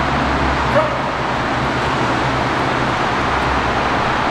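Steady hum and traffic noise in a concrete parking garage, with one brief high chirp about a second in, likely a short whine from the dog.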